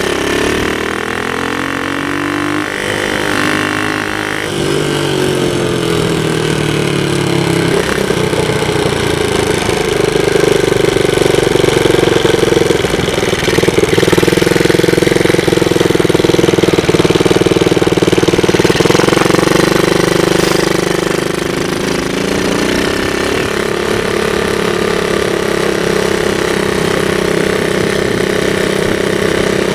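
70cc Chinese ATV engine running as the quad is ridden along at speed, its buzzing note rising and falling as the throttle is opened and eased off.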